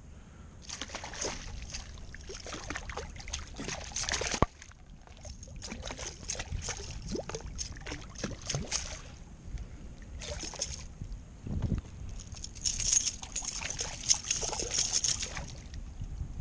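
A hooked fish splashing and thrashing at the water's surface beside a kayak as it is reeled in, with water sloshing against the hull in irregular bursts. One sharp click about four seconds in.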